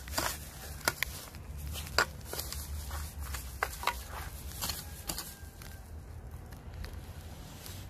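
Footsteps and rustling among garden plants: irregular crackles and clicks, the sharpest about two seconds in, over a low steady rumble.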